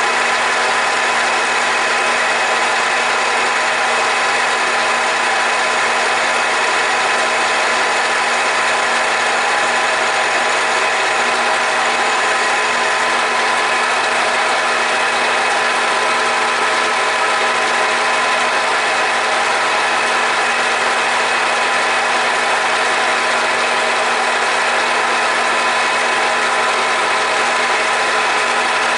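Grizzly G4003G gear-head lathe running at about 600 RPM with a grooving tool feeding into a spinning leaded brass rod. It makes a steady machine whine with a constant cutting hiss, unchanging throughout.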